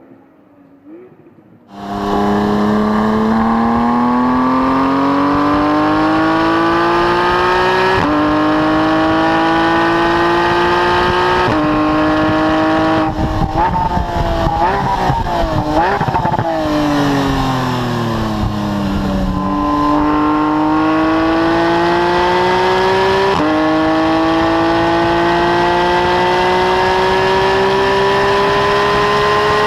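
Porsche 991 GT3's naturally aspirated flat-six, heard at the exhaust tips, at full throttle: the revs climb and drop back at each quick upshift, twice in a row. Then the engine lifts off with rapid downshift blips, the revs fall away, and it pulls hard again with another upshift.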